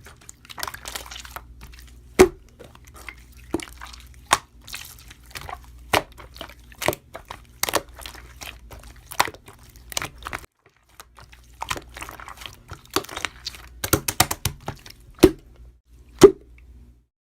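Irregular sharp clicks and taps, several a second with a few much louder knocks, over a low steady hum. The hum breaks off for about a second near the middle, and the sound stops shortly before the end.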